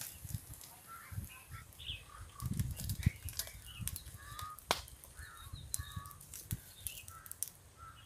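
Scattered short bird chirps, with a few sharp snaps from a small open fire of twigs and dull knocks as the carcasses are turned over it.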